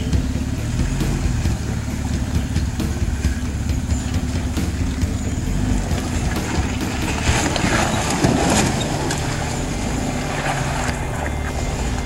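Jeep Wrangler TJ engine running low and steady as it crawls through a rocky creek, with scattered clicks of tyres over rocks. A louder rush of water splashing comes about eight seconds in.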